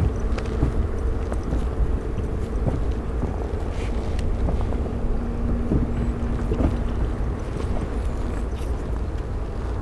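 Wind rumbling on the microphone over the steady wash of an inflatable rubber boat on the sea, with a faint low hum underneath and a few small knocks.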